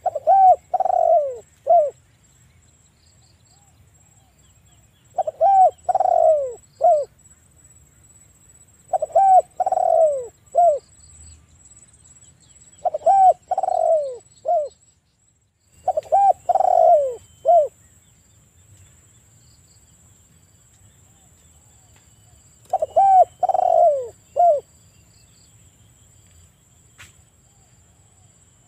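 Spotted dove cooing: six repeated phrases a few seconds apart, each a run of a few hoarse coos ending in a short separate note.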